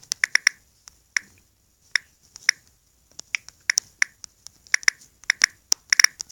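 Computer keyboard typing: irregular key clicks, some single and some in quick runs, as a search phrase is typed.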